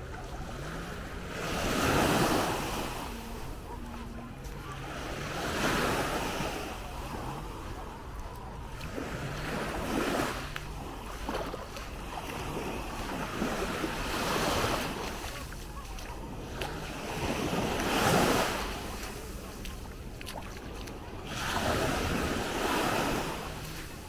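Small Baltic Sea waves breaking and washing up the sand at the water's edge, a soft surge about every four seconds over a steady wash of water and light wind.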